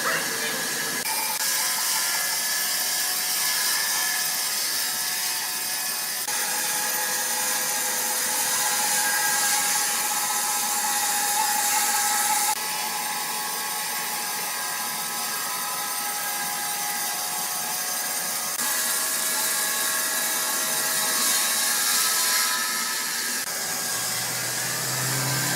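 Sawmill machinery running, with a steady high hiss of saws and wood-processing machines. The sound changes abruptly several times as one stretch of machine noise gives way to another.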